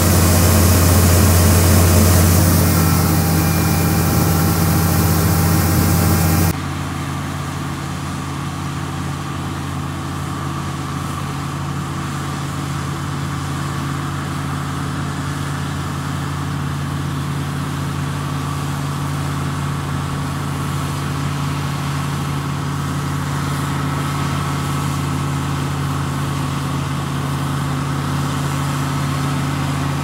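Combine harvester engine running loud and close, with a steady hiss of wheat pouring through the unloading auger. About six and a half seconds in, the sound drops suddenly to the combine running steadily further off as it cuts wheat.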